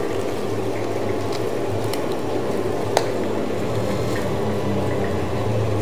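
Steady rumble and low hum of a working food stall, with plastic bags being handled and one sharp click about three seconds in.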